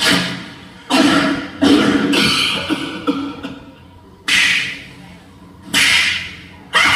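Stage-show dance music played loud through a hall's sound system, coming as a run of sharp, heavy hits. There are six in all, unevenly spaced, each dying away into a gap before the next.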